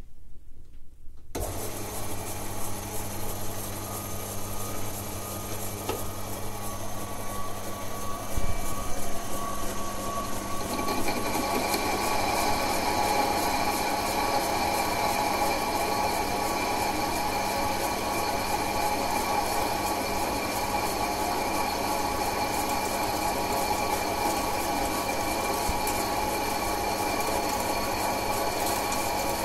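Emco Compact 5 bench lathe starting up about a second in and running with a steady hum. About eleven seconds in, the tool starts a 0.5 mm cut in mild steel, adding a harsher, denser cutting noise with a high whine that holds steady.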